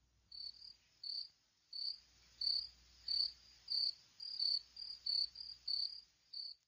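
A cricket chirping: short, high chirps repeated evenly about one and a half times a second, over a faint low hum.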